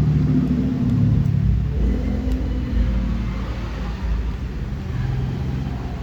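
Low rumble of a motor vehicle engine running, loudest in the first two seconds and easing a little after.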